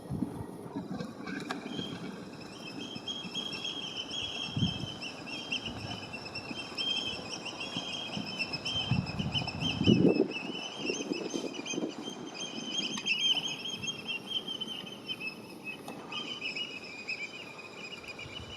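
A bird twittering in one long unbroken chattering song, with low gusts of wind buffeting the microphone, the strongest about halfway through.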